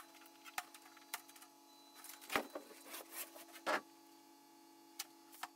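A faint steady hum with scattered light knocks and clicks coming at irregular intervals.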